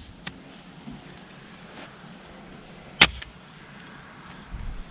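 A pistol fitted with a Zulisy Owl red dot sight is dropped onto grass and lands with a single sharp impact about three seconds in. This is a drop test of the optic.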